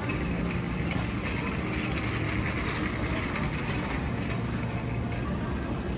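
Steady rolling noise of small shopping-cart wheels on a tiled supermarket floor.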